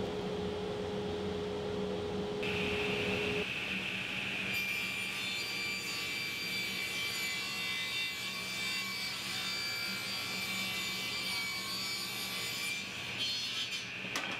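Table saw running with a steady motor hum, its blade cutting through a pine board on edge for several seconds in the middle.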